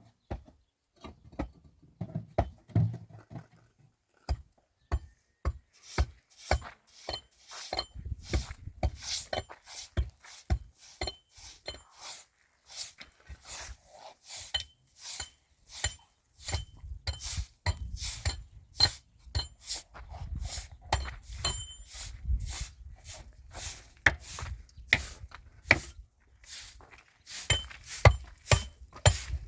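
A long series of sharp knocks and clinks, about two a second and quicker toward the end, some with a faint metallic ring.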